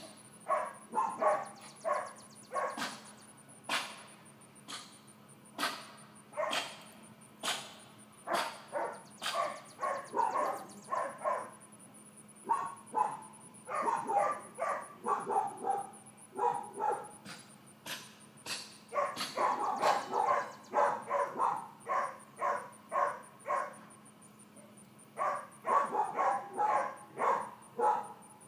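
A dog barking and yipping over and over, in runs of several short barks a second broken by brief pauses.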